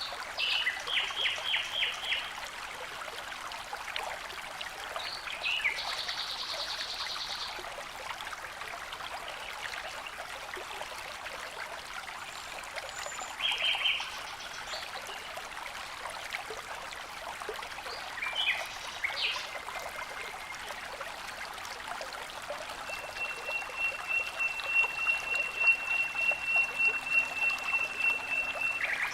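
Steady rush of falling and flowing water, with birds calling over it: several short bursts of quick high notes, then a long high trill near the end.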